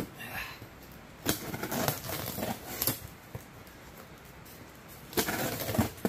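Handling of a cardboard box bound in packing tape and plastic wrap: scattered crinkles, rustles and light knocks, with a denser run of crinkling near the end.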